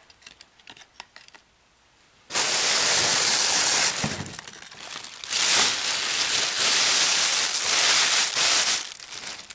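A few faint light taps, then a plastic bag of dry ice rustling loudly and continuously as it is handled, starting suddenly a couple of seconds in, easing off briefly in the middle, then rustling again.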